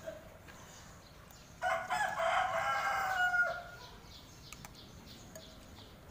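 A rooster crowing once, a single call of about two seconds starting a little over a second and a half in, dropping slightly in pitch at its end.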